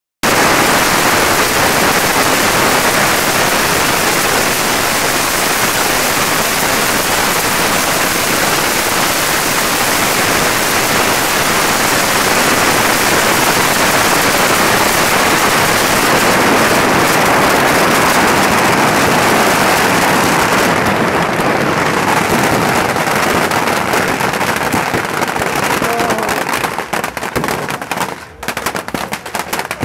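Yanshui beehive fireworks, with massed bottle rockets and firecrackers going off together in a very loud, unbroken rattling crackle. A few seconds before the end it thins out into separate sharp pops and bangs.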